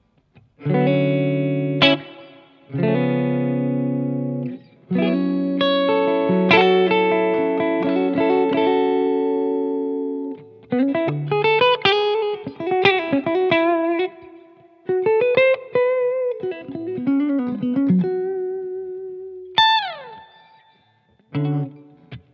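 Umeda UST QM24 electric guitar played clean with its neck and bridge humbuckers together, not coil-split. For about the first ten seconds it plays sustained chords, then single-note lines with bent and wavering notes, and it ends with a note gliding down in pitch.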